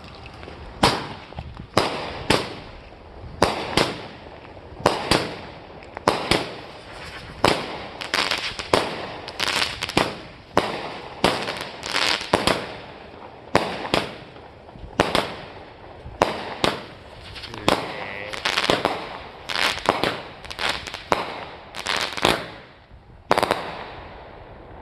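Black Cat Bull Run 20-shot 200-gram firework cake firing. It gives a long string of sharp launch thumps and aerial bangs, about one to two a second, with the last big bang about a second and a half before the end.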